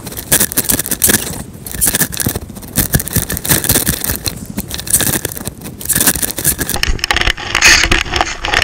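Jacket fabric rubbing and scraping over a body-worn camera's microphone as the wearer moves, in a run of irregular rustles and scrapes.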